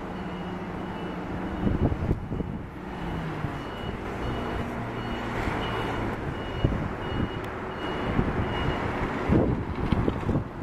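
HINO RK8JRSA city bus's diesel engine running as the bus passes. A high electronic beep repeats about twice a second, and the microphone picks up gusts of wind near the end.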